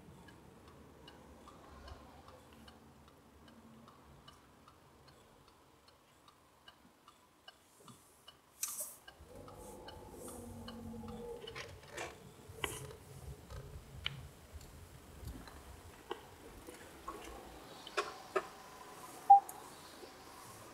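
A car's turn-signal indicator ticking steadily inside the cabin. Low interior road noise and a few sharp clicks and knocks come in from about halfway, the loudest near the end.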